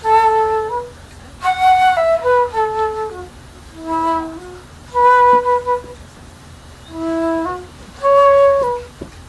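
Flute playing a slow melody in short phrases of held notes that step from pitch to pitch, with brief pauses between the phrases.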